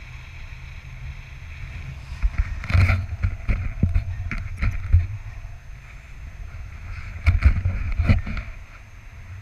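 Wind rushing over an action camera's microphone in flight, a steady rumble that swells twice into louder buffeting with short knocks, about two to five seconds in and again near the end.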